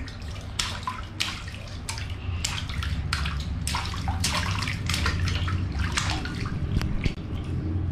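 Water splashing during a child's bath, in many short splashes over a steady low rumble of running water.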